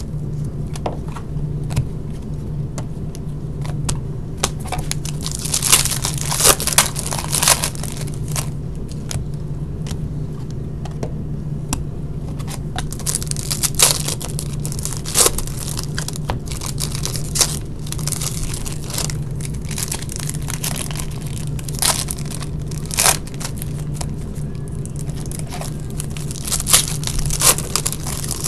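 Hockey card packs and boxes being torn open and their wrappers crinkled, in irregular sharp rips and crackles, with the cards handled in between.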